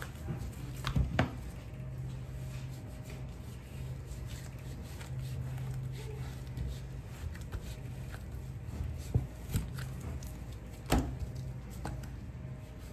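Knife slicing and scraping the hard dried crust off a dry-aged beef rib loin, with a few sharp knocks of blade and meat on the cutting board (one about a second in, two more near the end), over a steady low hum.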